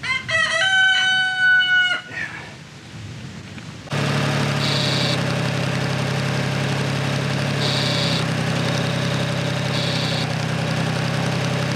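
A rooster crows once, a long held call, in the first two seconds. About four seconds in, an old Ford farm tractor's engine starts to be heard running steadily, supplying the rear remote hydraulics as the control lever is worked.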